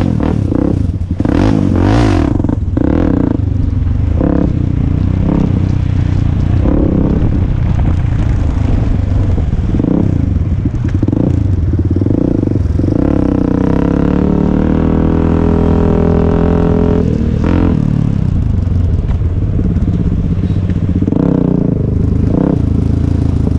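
Honda XR400's single-cylinder four-stroke engine running under load on a dirt trail, its revs rising and falling with the throttle, with clattering knocks from the bike in the first few seconds. From about 13 to 17 seconds in, the engine holds a steady pitch before the revs change again.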